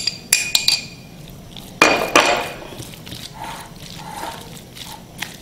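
Glass dishes clinking as a spoon scrapes beaten egg out of a small glass bowl into a glass mixing bowl, with two louder ringing knocks about two seconds in. After that come the softer sounds of a silicone spatula stirring the egg into flaked fish.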